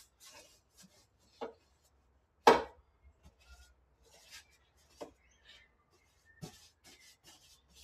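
A small paintbrush scraping and dabbing paint onto the bare steel floor of a stripped cab, with scattered light knocks of brush and paint tin and one louder knock about two and a half seconds in.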